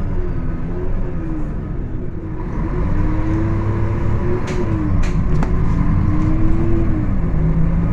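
Mercedes-Benz O500-UA articulated city bus engine running under way. Its pitch climbs, drops sharply about halfway through, then climbs again. A few sharp clicks come near the middle.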